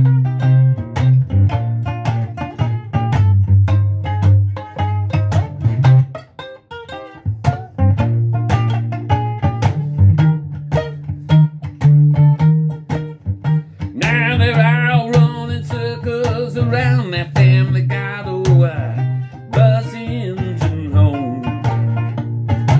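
Instrumental break of a song played on a homemade many-stringed ukulele: quick plucked notes over a steady bass line. About halfway through, a wavering higher melody line joins.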